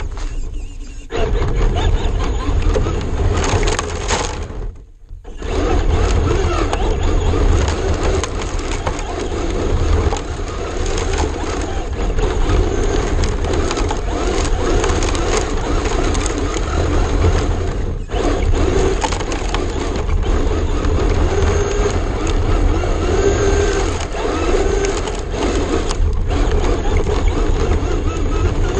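Traxxas RC car driving over wet, rough asphalt, picked up on the car itself: a loud, steady crunching and rattling from the tyres and chassis, with a low hum underneath. It drops away briefly about five seconds in, then carries on.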